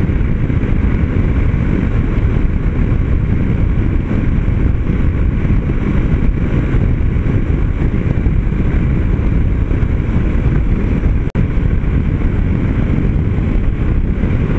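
Steady wind rush over the microphone mixed with the running of a Yamaha Ténéré 250's single-cylinder engine, cruising at about 100 km/h. The sound drops out for an instant about eleven seconds in.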